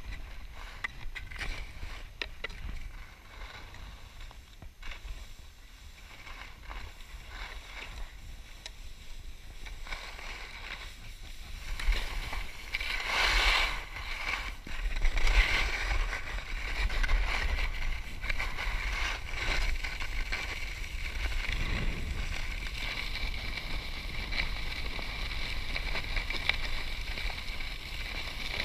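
Skis sliding and scraping over packed snow, with wind rumbling on the microphone. Quieter at first, it gets louder with swells from about halfway through.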